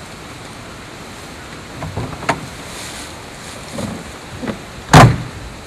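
Steady background rush with a few light knocks, then one loud thump about five seconds in.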